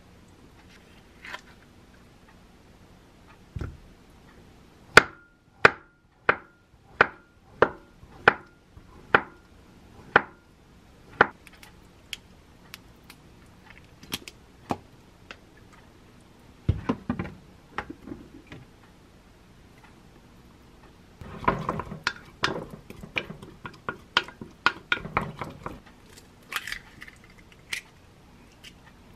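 Kitchen knife chopping on a wooden cutting board: about nine slow, even strikes, each with a short ring. After them come scattered clinks and a busier stretch of utensil clatter and scraping.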